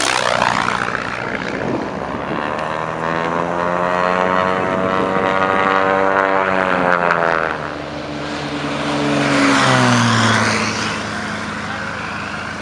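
Single-engine piston light aircraft flying low past, one after another: engine and propeller drone that swells and drops in pitch as each aircraft goes by, once right at the start and again about nine to ten seconds in.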